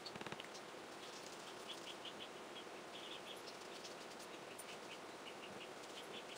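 Faint high-pitched chirping in short, quick clusters, repeating throughout over a steady low hiss.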